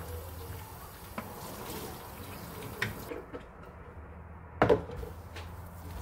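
Kitchen tap running over a plastic ice cube tray being rinsed in a stainless steel sink, with small plastic clicks. The water stops about halfway, and a loud knock follows as the tray is put down on the steel draining board.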